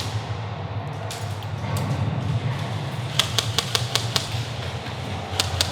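Airsoft guns firing: a quick run of sharp snapping shots a little over three seconds in and a few more near the end, over a steady low rumble.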